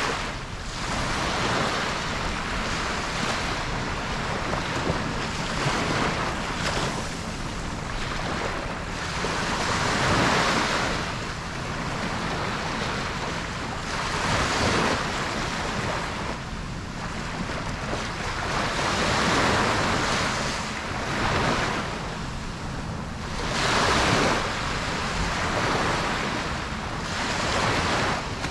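Ocean waves breaking on a beach, a steady rush of surf that swells every four to five seconds as each wave comes in.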